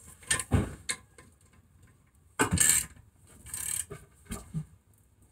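Socket ratchet wrench clicking in several short bursts as a nut on a rear brake hub assembly is turned. The loudest burst comes a little past the middle.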